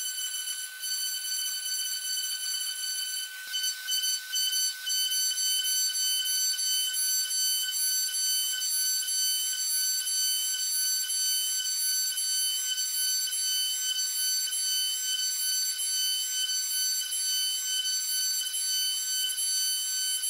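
High-speed CNC engraving spindle running with a steady high-pitched whine while its fine cutter engraves a brass disc, with a light hiss of cutting and a few short ticks about three to five seconds in.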